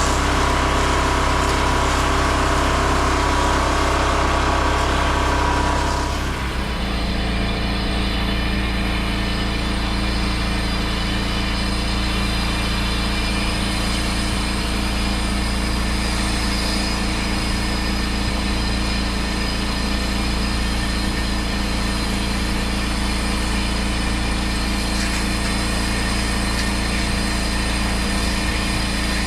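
Small gas engine of pressure-washing equipment running steadily. A high hiss over it stops about six seconds in, and the engine note changes and then holds steady.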